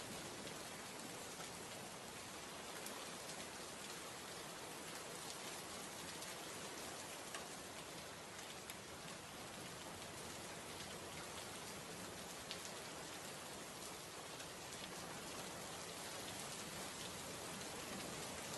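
Heavy rain falling steadily and splashing on the ground: an even hiss with scattered sharp drop ticks.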